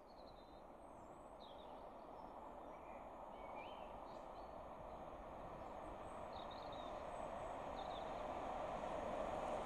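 Approaching train hauled by steam locomotive 46100 'Royal Scot', a steady distant noise of the train on the rails that grows louder throughout, with small birds chirping over it.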